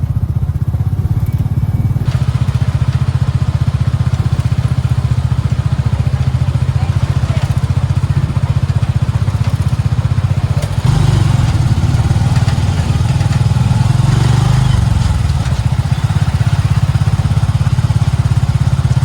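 Motorcycle engine of a motorized tricycle running steadily under way, heard from the passenger seat, with road and wind noise. It gets louder about eleven seconds in.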